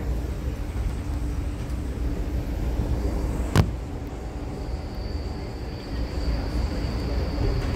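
Steady low rumble of a moving passenger train heard from inside the car, with one sharp knock about three and a half seconds in. A faint high whine comes in about halfway through.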